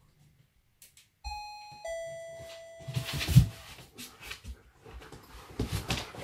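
Two-note ding-dong doorbell chime, a higher note followed by a lower one that rings out. Then a dog's paws scuffling and thumping on the floor, loudest about three seconds in, as it walks into a soft fabric crate.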